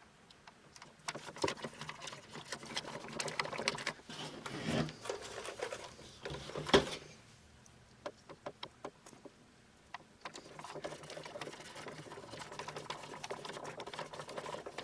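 Hands pressing and rubbing a glue-backed paper sticker onto hard plastic: quick scratchy rubbing and clicks, with a pause of a few seconds in the middle.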